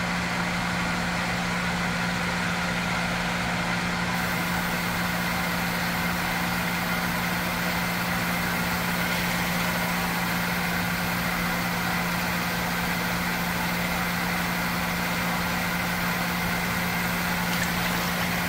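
Steady machine hum with a strong low tone, unchanging throughout, like a motor-driven fan running.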